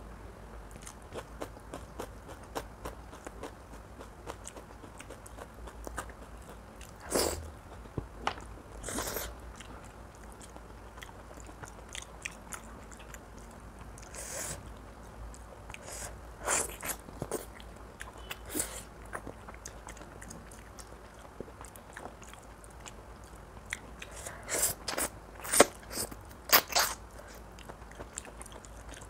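Close-miked eating of oily mutton curry: steady chewing and wet mouth clicks, with louder sharp snaps at intervals, clustered near the end. A steady low hum runs underneath.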